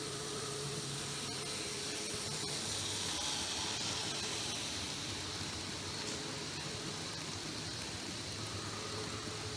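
Z-scale model freight train of hopper wagons running past on the track: a faint, steady whir and hiss of its wheels and small electric motor, a little louder about three to four seconds in as the wagons pass close.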